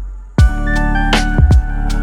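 Background electronic music with a heavy beat. It fades almost out, then comes back in just under half a second in with deep bass-drum hits and sustained synth notes.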